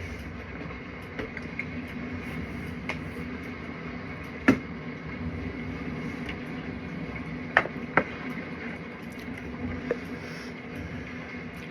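Steady low hum with a few short, sharp clicks and taps: the loudest about four and a half seconds in, and a quick pair near eight seconds.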